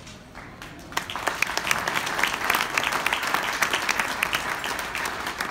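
Audience applauding: many hands clapping together, starting about a second in.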